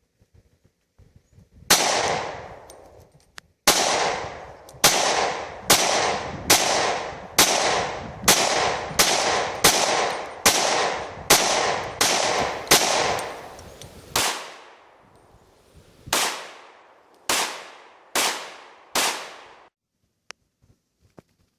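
Glock 31C pistol firing .357 SIG full metal jacket rounds: about twenty shots in an uneven string, each a sharp crack followed by a fading echo. The shots come quickly in the middle and more slowly near the end.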